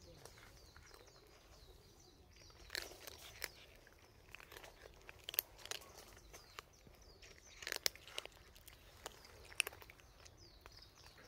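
Cats chewing dry kibble, with irregular sharp crunches, a few of them louder than the rest.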